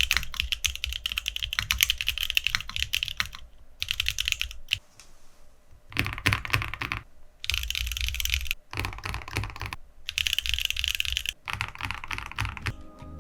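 Typing on a custom mechanical keyboard: runs of fast keystrokes in several bursts, with short pauses between them, the longest about five seconds in.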